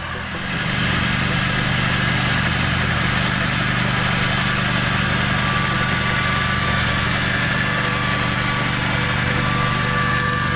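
Engine of a Köppl Gekko single-axle carrier running steadily as it mows with its portal cutter bar, louder from about half a second in.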